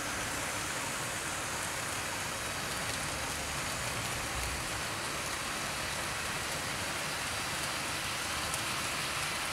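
OO gauge model train running on the track: a ViTrains Class 37 diesel locomotive hauling a long rake of loaded open wagons, a steady noise of the locomotive's motor and many wagon wheels rolling on the rails.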